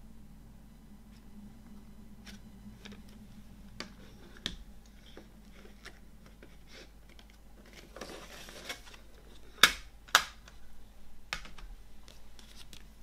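Plastic CD jewel case handled and opened on a wooden table: scattered light clicks and taps, a brief rustling scrape, then two sharp, loud plastic clacks about half a second apart, followed by a few softer clicks.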